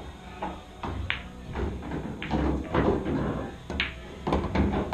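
A pool cue tip strikes the cue ball, which clacks sharply into an object ball. The shot is heard over steady background room noise.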